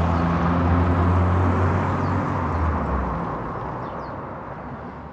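Outdoor city ambience: a steady low hum of distant traffic with a few short, faint, high bird chirps. It fades out over the second half.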